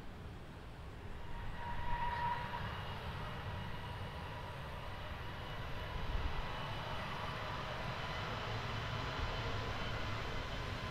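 Airliner jet engines outdoors: a Boeing 787 on its landing rollout in the first seconds, then an Airbus A321neo's Pratt & Whitney geared turbofans at takeoff power as it starts its takeoff roll. A steady whine over a low rumble, slowly growing louder.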